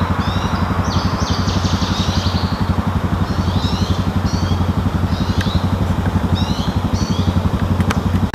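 A vehicle engine idling steadily with a fast, even pulse, while a songbird sings short repeated chirping phrases over it.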